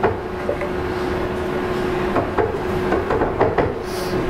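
Scattered light knocks and clicks, a few of them close together in the middle, over a faint steady hum.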